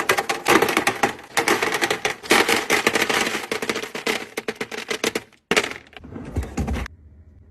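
Rapid, dense clattering of many small hard objects for about five seconds, followed by two shorter bursts of clatter, then it stops.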